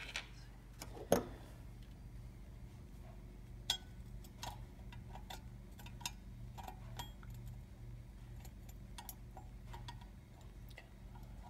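Scattered small metallic clicks and ticks of a tiny screw and fingertips against an aluminium intake manifold as a butterfly valve screw is worked toward its threaded hole, with a sharper click about a second in.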